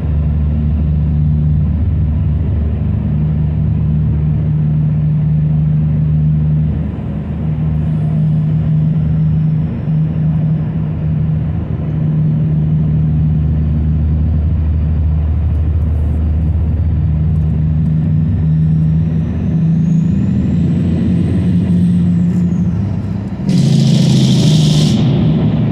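Car on the move: a steady low engine and road hum. Near the end, a brief, louder rush of noise rises over it for about a second and a half.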